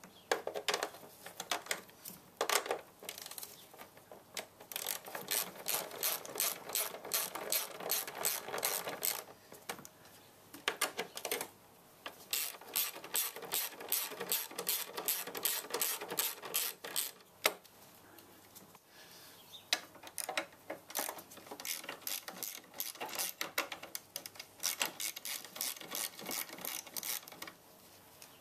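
Hand socket ratchet clicking in rapid runs as it turns the nuts on a car battery's terminal clamp and hold-down bar, with short pauses between runs.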